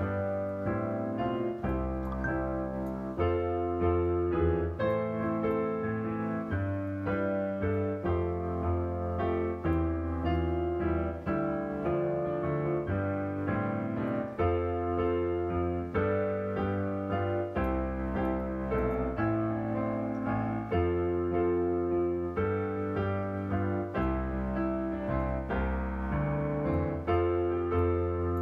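Piano music playing at the close of a church service as a postlude: a flowing run of notes over a steady bass.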